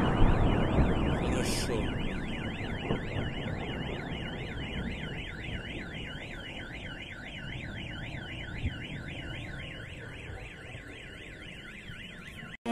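A car alarm wailing, its tone sweeping up and down about twice a second. Under it a loud rumble fades away over the first few seconds, and the sound cuts off abruptly just before the end.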